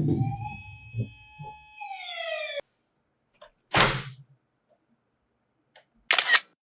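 A siren tone that holds, then glides down in pitch and cuts off abruptly, followed by two short whooshing bursts with silence between them.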